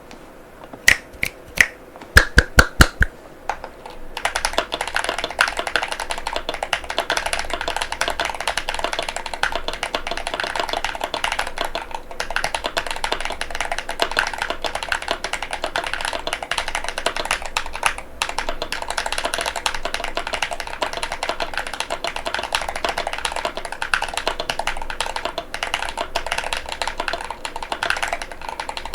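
Fast typing on an Epomaker RT100 mechanical keyboard with Gateron Beer switches and polycarbonate Cherry-profile keycaps. It opens with a few separate sharp key presses and a quick run of louder ones, then a steady rapid clatter of keystrokes begins about four seconds in.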